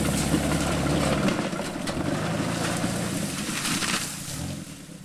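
Pontiac 6000's engine revving hard in long surges while the car spins its wheels, trying to drive out of dirt and brush. The revs ease off near the end.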